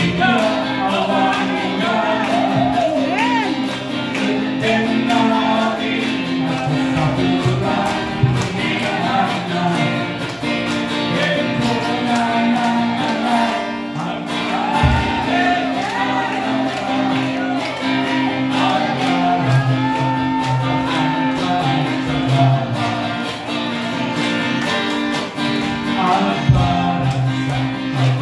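Two men singing an Ilocano gospel song into microphones over a strummed acoustic guitar, amplified through a PA system.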